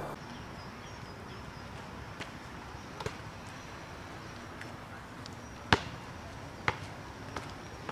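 A basketball striking the court's metal hoop and bouncing on the paving: a few separate sharp knocks, the loudest about three-quarters of the way in, followed by two quieter ones.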